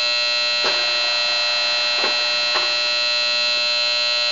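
Ikeda radial arm drill press running with a steady, high whine made of several tones, with three faint clicks as the clamping push-buttons in the handwheel hub are pressed and the head and arm unclamp.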